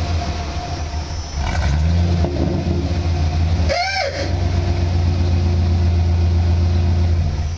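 1994 Ford F-150's engine running from a cold start at 19 °F, heard at the exhaust tip: a steady low exhaust rumble that rises about one and a half seconds in as the engine revs, then holds at the higher speed. A short high squeak sounds about four seconds in.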